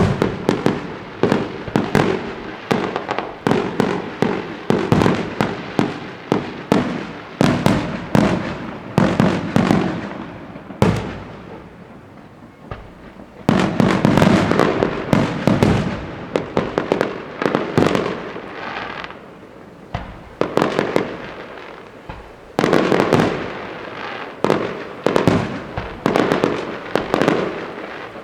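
Fireworks going off in a fast, dense series of bangs and crackles, easing off to a lull for a couple of seconds about halfway through before a fresh volley starts.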